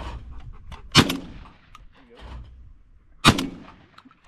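Shotgun fired twice at thrown clay targets, the two shots a little over two seconds apart, each with a short echoing tail.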